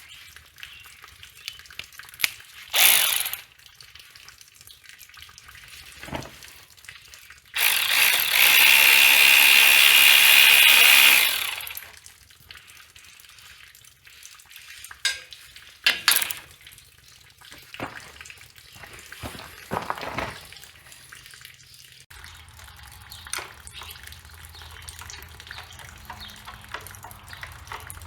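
Work with tools on the bolts of a Caterpillar D4's water pump pipe: scattered clicks and knocks of metal. A short hiss comes in early on, a loud steady hiss follows for about four seconds a third of the way in, and a low hum sets in near the end.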